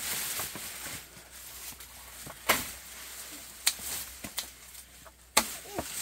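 Leafy sweet potato vines rustling as they are pulled off the bed and gathered, with four sharp clicks as the stems are cut with scissors.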